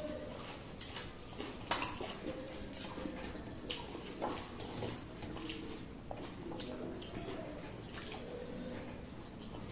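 Rice and chicken curry being mixed by hand on metal plates: wet squishing, with many small irregular clicks of fingers and food against the metal, and chewing.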